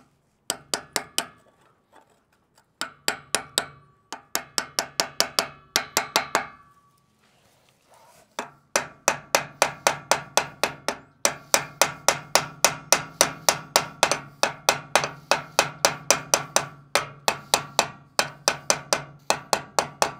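Hammer tapping a bearing buddy down onto a boat trailer's wheel hub: quick light blows with a metallic ring, about four a second, in a few short runs and then one long steady run.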